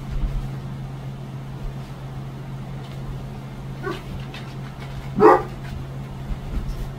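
A basset hound gives one short, loud bark about five seconds in, with a fainter short call a second before it, over a steady low hum.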